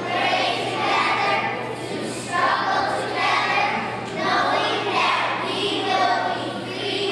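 A group of children reciting together in unison, their many voices blending into one chorus in phrases about a second long with short breaks between them.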